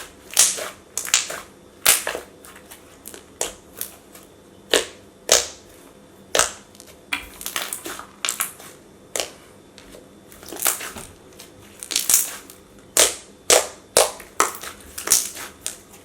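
Thick, glossy slime being squeezed and stretched by hand, giving a string of sharp, irregular clicks and pops, about one or two a second.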